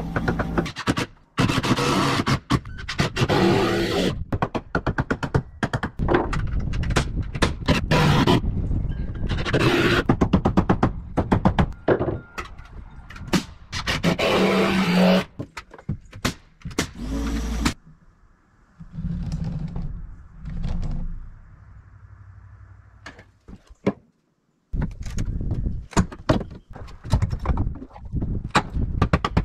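Carpentry work: scraping and repeated sharp knocks, starting and stopping abruptly, with a quieter stretch about two-thirds of the way through.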